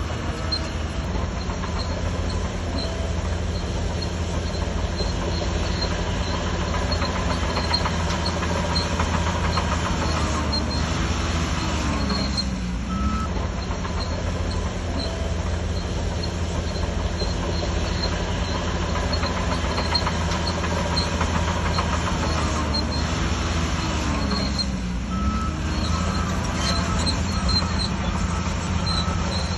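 Shantui DH17C3 crawler bulldozer's diesel engine running steadily under work, its pitch dipping and recovering twice, with faint regular ticking over the top.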